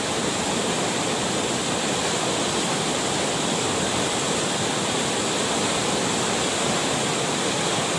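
River floodwater rushing past a concrete barrage and churning into whitewater, a steady, even rush of water.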